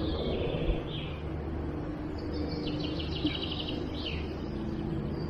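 Woodland birds chirping, with a short trill about three seconds in, over the steady low drone of motorcycles in the distance.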